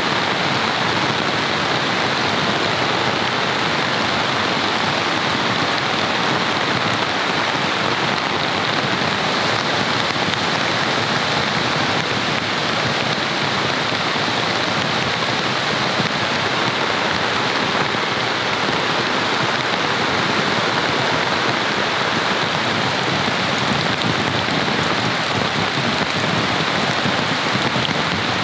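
Heavy rain falling steadily on a camping tent and tarp: an even, unbroken hiss.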